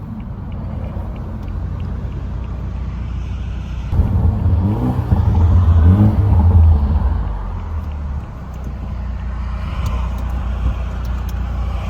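BMW 428i engine and AWE axle-back exhaust running on the move: a steady low drone that swells louder for about three seconds midway as the car accelerates, then settles back.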